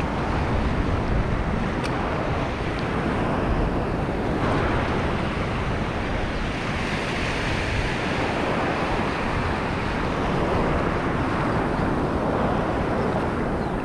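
Ocean surf breaking and washing in, a steady rush, with wind buffeting the microphone.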